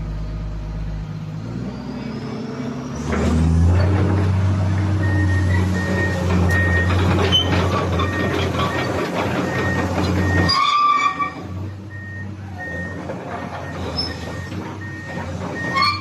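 Komatsu PC200-8 excavator's diesel engine running. It rises and works harder about three seconds in and eases back around ten seconds. Through most of it a steady series of short electronic beeps repeats.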